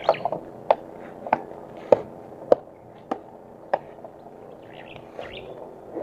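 Footsteps in sandals on a dirt farm path, an even step about every half second or so, stopping after about four seconds. Birds chirp briefly near the end.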